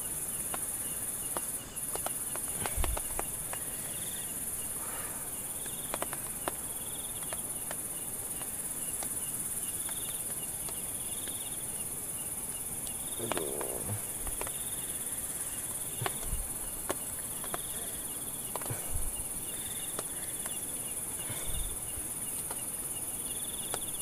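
A steady high-pitched chorus of night insects, with intermittent louder chirps every second or two. Scattered clicks, knocks and rustles of handling close by.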